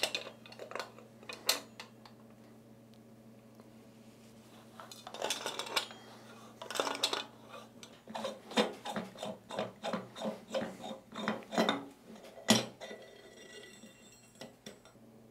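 Metal clinks, scrapes and clacks from a Kinetic Water Ram's stainless-steel air pump cylinder being loosened with pliers and worked apart by hand. There are scattered clicks, then a quick run of clinks in the middle and one sharp clack near the end.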